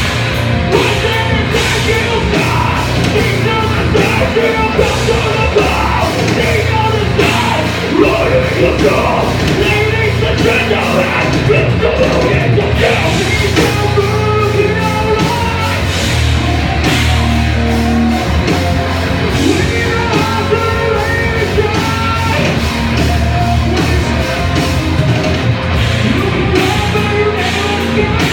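Live heavy rock band playing loud, with distorted guitars, bass and drums and a singer shouting and singing over them.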